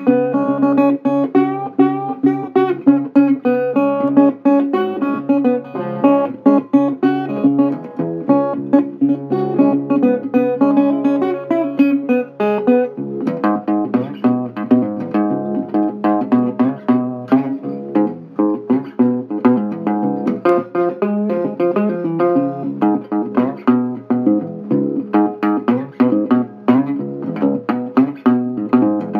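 Instrumental guitar music, a steady run of quick notes, turning to a busier part that reaches lower in pitch about halfway through.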